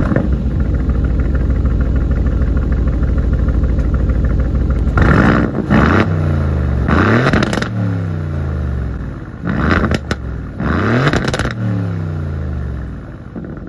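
Aston Martin Vantage's 4.0-litre twin-turbo V8 heard through its quad exhaust, idling steadily and then blipped about four times from about five seconds in. Each rev rises sharply and falls back to idle.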